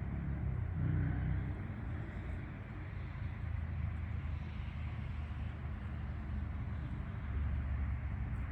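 Steady low rumble of distant road traffic, swelling slightly about a second in and again near the end.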